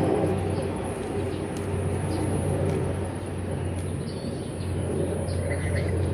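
Outdoor field ambience: a steady low rumble and hum, with a few faint, short bird chirps.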